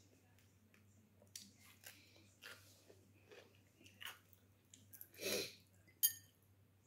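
Close-up mouth sounds of a person eating: irregular wet chewing and crunching, with a longer, louder bite a little after five seconds in and a sharp click about a second later.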